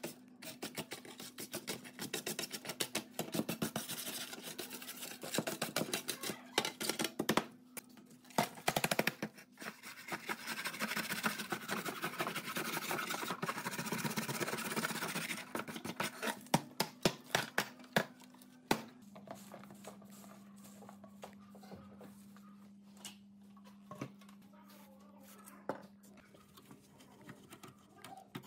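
Wire brush scrubbing caked rust and crumbling debris off a rusty sheet-steel mini gas stove in quick scraping strokes, full of sharp clicks and knocks. A little over halfway through the scrubbing stops, leaving scattered light clicks and taps of a screwdriver working at the burner's screw over a steady low hum.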